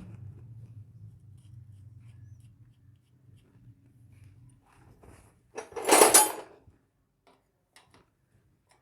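Metal tools and engine parts being handled during timing-chain work: scattered light clicks, then a loud rattling scrape lasting about a second, about six seconds in.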